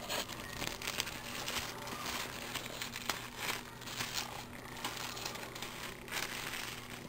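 Plastic wrap crinkling and rustling in irregular bursts as it is folded and pressed around a burrito.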